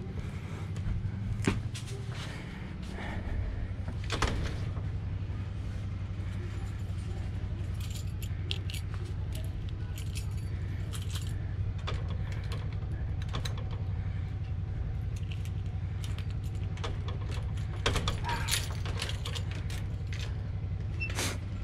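Small metal objects jingling and clinking in scattered short bunches over a steady low hum.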